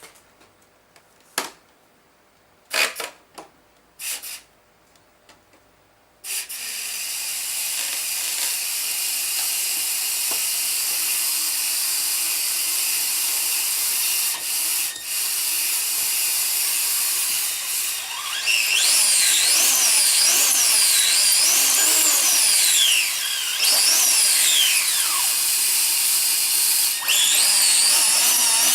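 A small high-speed power tool starts about six seconds in after a few faint clicks, then runs continuously with a high-pitched whine. From about two-thirds of the way in, the whine rises and falls in pitch as the tool works against the material.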